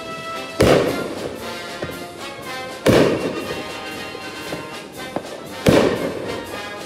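Three aerial firework shells bursting with sharp booms, about two to three seconds apart, each trailing off, over background music.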